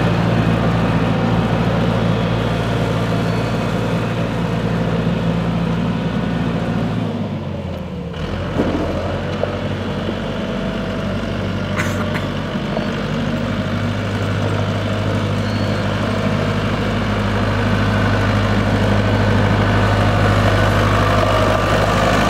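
Iseki T625H 4WD tractor's diesel engine running steadily as the tractor is driven. About seven seconds in the engine note drops in pitch and level, then builds back up and grows louder toward the end as the tractor comes close.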